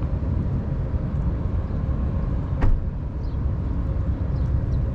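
Wind buffeting the microphone as a steady low rumble, with a single sharp click about two and a half seconds in.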